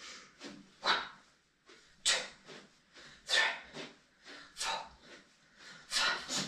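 A person breathing hard with exertion: short, forceful breaths, irregularly spaced at about one to two a second.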